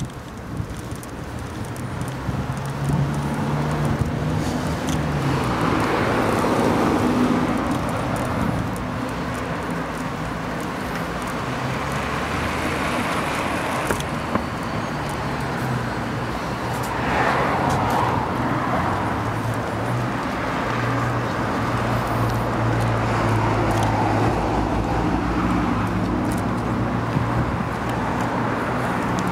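Steady street and traffic noise heard from a moving bicycle, swelling about 6 and 17 seconds in as if vehicles pass.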